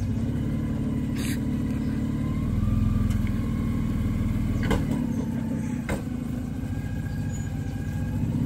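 Toyota LandCruiser 100 Series four-wheel drive crawling slowly over a deep rut, its engine a steady low rumble under load that swells slightly a few seconds in. A few sharp knocks sound over it.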